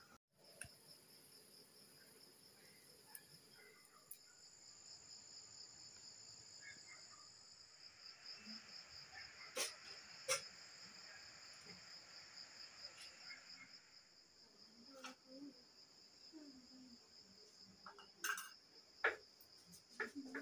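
Insects trilling steadily: a faint, high, rapidly pulsing drone, with a few sharp clicks in the middle and near the end.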